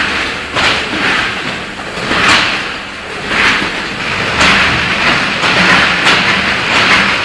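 Multihead weigher and vertical bagging machine packing frozen meatballs, running with repeated bursts of hiss and clatter over a steady machine hum.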